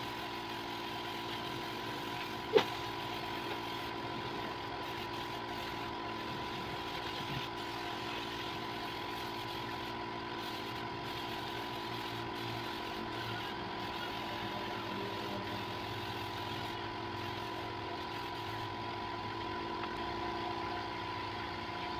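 Air compressor feeding a paint spray gun, running steadily with an even hum and a whine near 1 kHz. A single sharp click sounds about two and a half seconds in.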